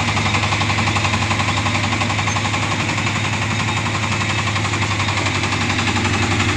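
Mini combine harvester's engine running steadily under power, with a fast, even chugging pulse.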